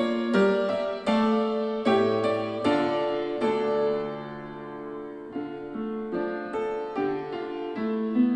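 Piano music played back through Logitech Z313 2.1 computer speakers, picked up by a microphone without equalisation: struck notes and chords, each ringing and dying away.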